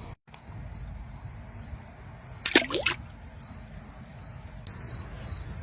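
Crickets chirping in short, evenly repeated pulses, with one brief loud splash-like sound about two and a half seconds in.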